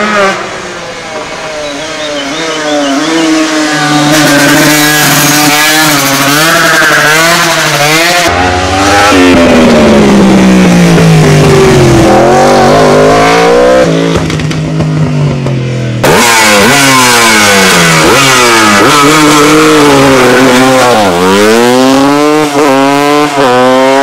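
Racing motorcycles at full throttle, heard one after another: an Aprilia 250 revving up through the gears, then a Yamaha 1000 superbike's engine falling in pitch as it slows into a bend before pulling away, then another bike revving up through quick gear changes.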